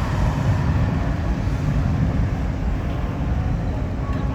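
Car engines running, a steady low rumble with no distinct revs or passes.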